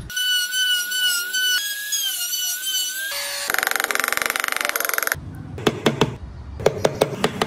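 Compact trim router whining at a high, steady pitch for about three seconds as it cuts into the wood. Then a short rasping buzz, followed by a wooden mallet tapping a chisel in a run of sharp knocks.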